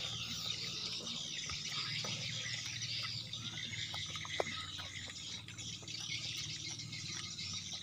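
Steady background chirring of insects in the woods, with a few faint short clicks and smacks of people eating with their hands.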